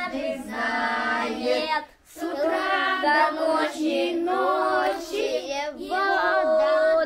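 Young children singing together with a woman, a sung melody with a short break about two seconds in.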